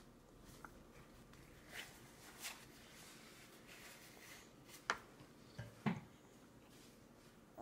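Quiet room with a few short, soft clicks and smacks from a baby being spoon-fed cereal: a plastic spoon knocking the bowl and the baby's mouth working on the food. The two sharpest clicks come about five and six seconds in.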